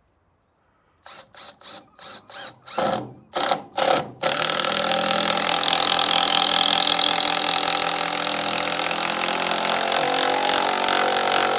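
Power drill driving a roofing screw: a string of short trigger taps to start the screw, then a steady, loud run as it drives the screw in.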